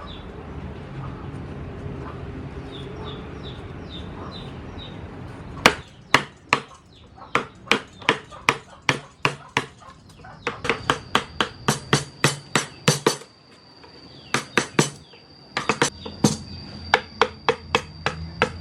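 Mallet striking a carving chisel into wood: a run of sharp knocks starting about a third of the way in, about two a second at first, then quicker in clusters.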